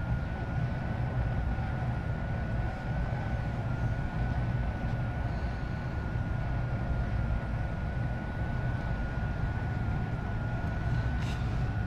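Lennox heat pump indoor unit running steadily in cooling: an even blower hum and airflow noise with a thin, steady high whine over it.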